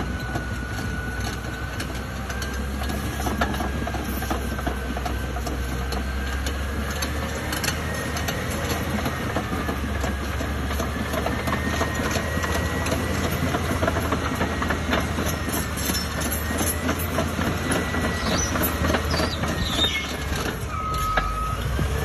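Diesel engine of a tracked earthmoving machine running steadily, with the dense clanking and rattling of its steel tracks and a thin whine that wavers in pitch. A short steady tone sounds near the end.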